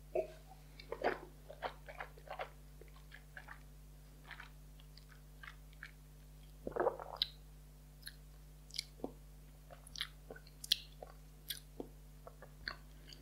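Mouth sounds of a man tasting whisky: a sip at the start, then scattered wet smacks and tongue clicks as he works the spirit around his mouth, with a longer, louder mouth sound about seven seconds in. A faint steady electrical hum runs underneath.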